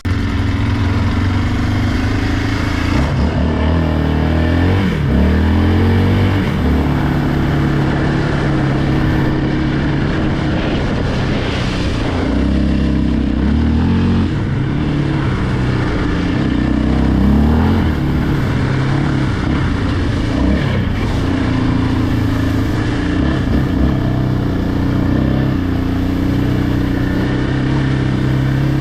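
Yamaha Raptor 700R ATV's single-cylinder four-stroke engine running under way, its pitch rising and falling in steps as it accelerates and shifts gears.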